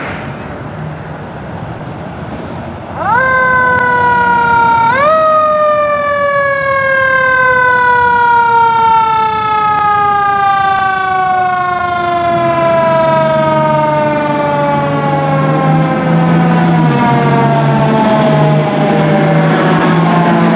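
Fire truck's mechanical siren winding up sharply twice, then coasting down in one long, slow fall in pitch. A low steady drone comes in about halfway through.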